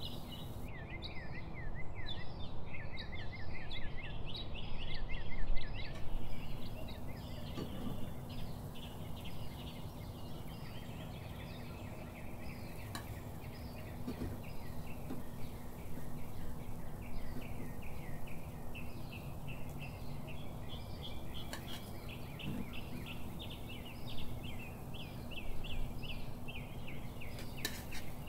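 Small birds chirping and twittering in quick repeated runs, busiest in the first few seconds, over the low steady hiss of oil frying gulab jamun balls in a pan, with a faint steady hum.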